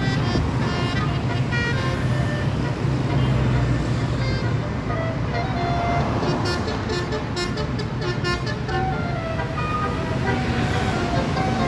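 Bus telolet horn playing a tune of short notes that step up and down in pitch, over the steady low hum of a bus engine and road traffic.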